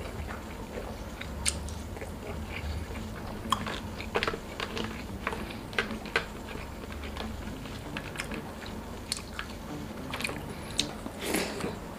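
A person chewing and smacking while eating rice and noodles by hand, with many short, sharp, irregular mouth clicks.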